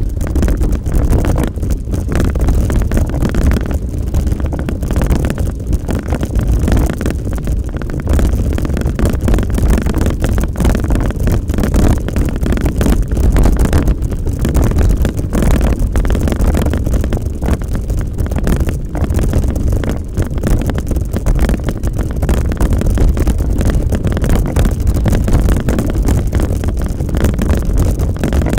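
Wind buffeting the microphone on a moving mountain bike, a steady low rumble with frequent small rattles and knocks as the bike jolts over a rough dirt track.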